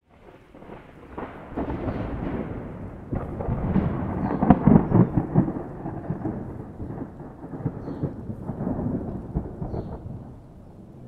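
Rolling thunder from a thunderstorm: a rumble rises from silence, peaks with a sharp crack about four and a half seconds in, swells again later, then rolls away and fades near the end.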